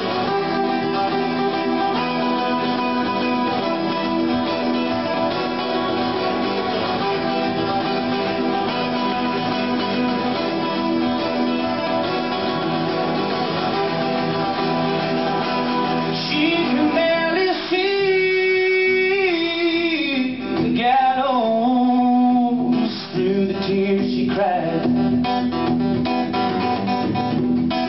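Acoustic guitar strummed steadily through an instrumental stretch of a folk song. A bit past halfway a man's voice comes in singing over the guitar.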